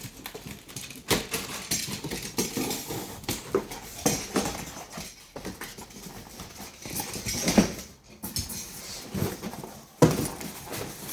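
Irregular rustling, clicks and knocks of packaging and parts being handled while a computer monitor is unboxed.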